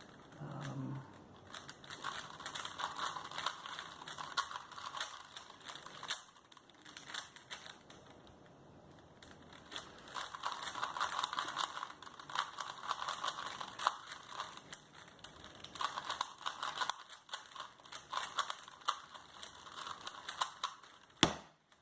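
Plastic Rubik's Cubes being twisted rapidly by hand: a fast run of clicking and clattering as the layers turn, coming in spurts, with a quieter lull about a third of the way in.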